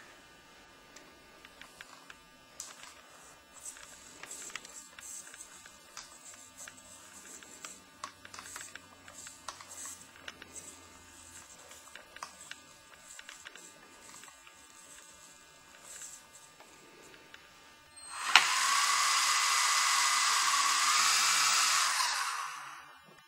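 Small electric R/C helicopter motor and rotor: it starts abruptly about eighteen seconds in, runs with a steady high whine for about four seconds, then stops. Before that there are only faint scattered clicks.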